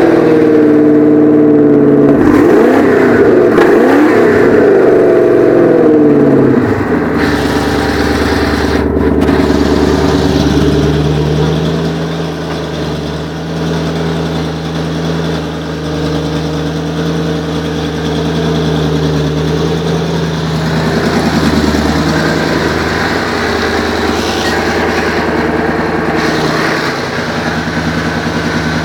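Twin-turbo V8 engine running at raised revs with its pitch wavering. About six seconds in it drops to a lower, steady idle that sags and recovers a couple of times. The engine is running very rich on a borrowed Megasquirt tune.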